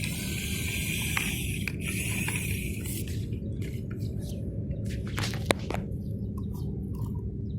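Radio-controlled excavator running with a steady low hum, with a hiss over the first three seconds and a few sharp clicks and knocks, the sounds of the bucket working in dirt.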